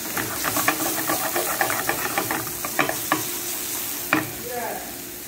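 Mixed vegetables sizzling in olive oil in a frying pan, with quick clicking and scraping as they are stirred with a wooden spatula. The clicks come several times a second for the first three seconds, then only now and then.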